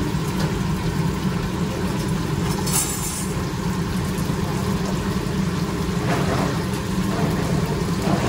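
Steady low rumble with an even hiss over it, the running noise of a fry stall's deep-fryer burners and fans. A short, sharper hiss stands out about three seconds in.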